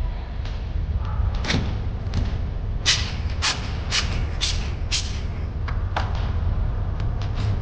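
A run of sharp clicks or taps, about two a second for a couple of seconds, with a few scattered ones before and after, over a steady low hum.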